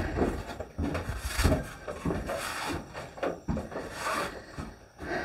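Handling and movement noises: a string of irregular knocks, thuds and rustles.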